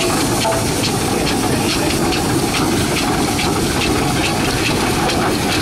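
Steam traction engine running, a steady hiss with regular exhaust beats about two a second.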